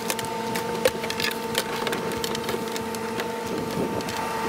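Irregular clicks, crackles and rustling of electrical wire being handled and fished through a fiberglass boat console, over a steady high-pitched hum.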